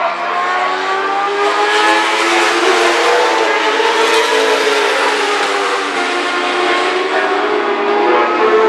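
A pack of racing sidecar outfits passing at high revs. Several engines sound at once as overlapping pitches, rising through the first couple of seconds and then held.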